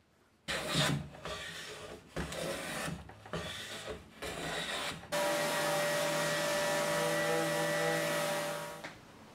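A wooden hand plane shaving the edge of a pine board in a series of quick strokes, then an electric palm sander switched on and run steadily over the board for about four seconds before it winds down near the end.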